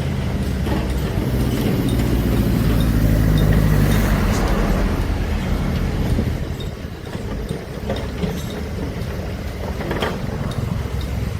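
Heavy earthmoving machine's engine working under load, rising to a peak a few seconds in and easing off after about six seconds, with a couple of short knocks near the end.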